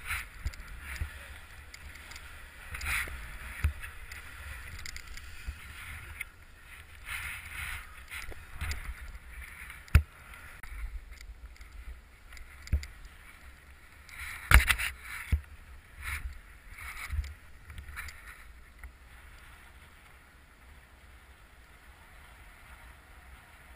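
Wind buffeting an outdoor microphone, with a hiss that comes and goes and scattered sharp knocks, growing quieter near the end.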